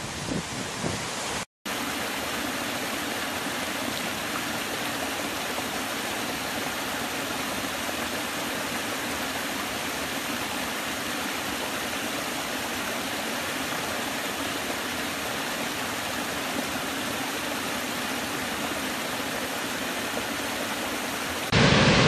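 Steady rush and splash of a shallow woodland stream running over low rock ledges in small cascades. It is preceded by a second and a half of gusty wind on the microphone over a large waterfall, ending in a brief dropout. Near the end a much louder, even rush of a big waterfall cuts in.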